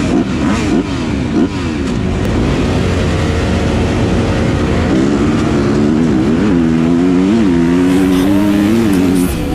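Several motocross bikes revving at the start gate, their engine pitches sweeping up and down over one another. About five seconds in, one dirt-bike engine close to the microphone takes over, running hard at a steady high pitch with short dips as it shifts up through the gears while pulling away.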